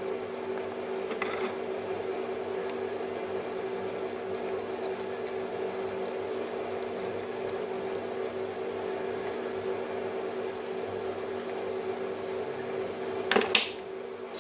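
A steady machine hum, like a fan running in a small workshop. About a second before the end there is a brief clatter of metal on wood, as the rusty cast-iron can opener is set down on the workbench.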